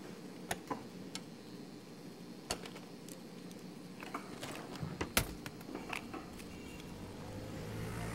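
Scattered sharp clicks and light metallic knocks as a small metal object is handled on a wooden counter, the loudest knock about five seconds in, over a steady low room hum. A low rumble swells near the end.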